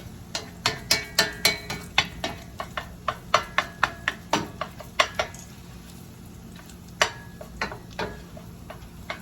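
Spoon clacking against a pan while stirring thick tomato paste, in quick taps about three or four a second for the first five seconds or so, then only a few scattered knocks.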